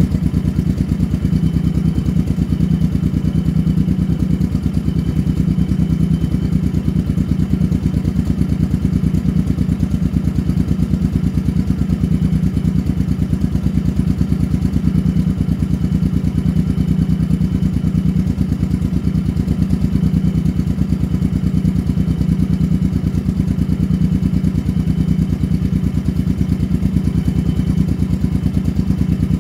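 Motorcycle engine running steadily at an even speed, a fast, regular pulse of firing strokes with no revving.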